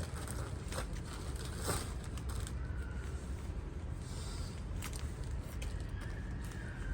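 Jeans being handled: faint rustling with a few light clicks, over a steady low hum.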